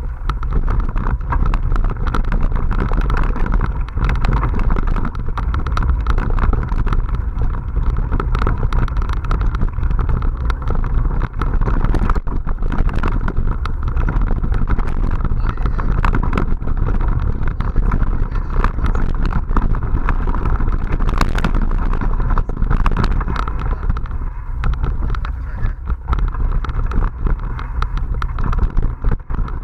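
Wind buffeting an action camera's microphone while a mountain bike rolls fast over a dirt forest trail. Tyre noise and the rattle of the bike and camera mount run underneath, with frequent sharp knocks from bumps and roots.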